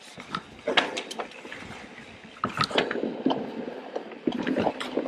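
Trek Fuel EX 8 full-suspension 29er mountain bike rolling on a dirt trail: a steady hiss of tyres on the ground, with irregular knocks and rattles from the bike as it rides over bumps.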